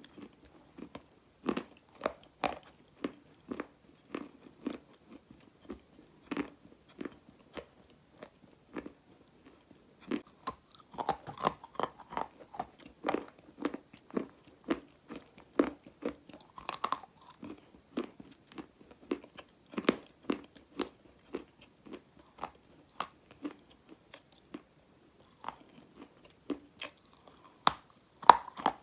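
Dry black enchantress clay being bitten and chewed close to the microphone: a run of crisp crunches, roughly two a second, with a couple of short pauses.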